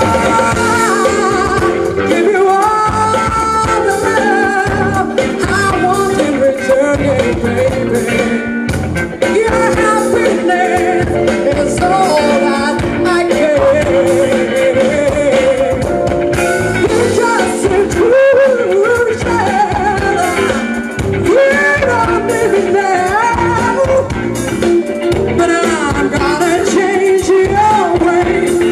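Live band playing with a woman singing lead: electric guitars, drum kit and keyboard, amplified through a stage PA.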